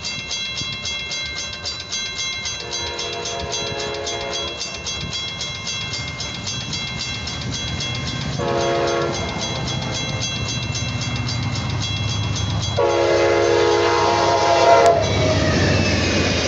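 Railroad crossing bell ringing rapidly while an approaching Amtrak GE P42DC diesel locomotive sounds its horn for the grade crossing: a long blast, a short one, then a long one. In the last second or two the train reaches the crossing and the rumble of the locomotive and cars takes over.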